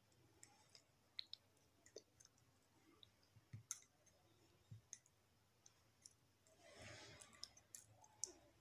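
Near silence with faint, scattered little clicks from fingers stirring a thick, white gel-like serum in a small bowl, and a soft swish about seven seconds in.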